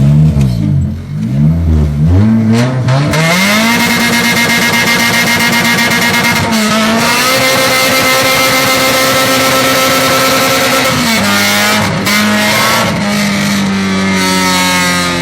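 Toyota 2ZZ-GE 1.8-litre inline-four revving hard. It blips up and down, climbs quickly about three seconds in, then is held high near the top of its rev range, with brief dips about six and eleven seconds in. At these revs it runs on its high-lift cam profile, the VVTL-i 'lift'.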